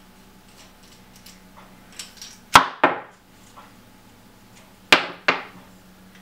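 The projector's removed metal handle and parts knocking and being set down on the work table: two pairs of sharp clanks, about two and a half seconds apart.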